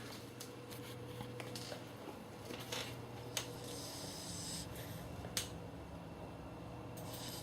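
Sleeper snoring: slow breaths heard as soft hissing a couple of seconds apart, over a steady low hum, with a few faint sharp clicks.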